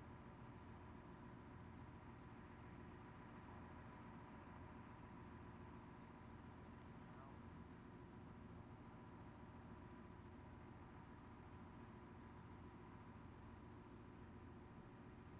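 Faint, steady chirping of a cricket, an even run of high-pitched pulses that does not let up, over a low hum.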